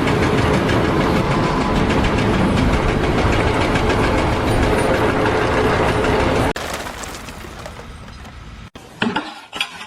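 Loud, steady mechanical rumbling with a fast rattle, cutting off abruptly about six and a half seconds in. A quieter stretch of it follows, then a few clattering knocks near the end.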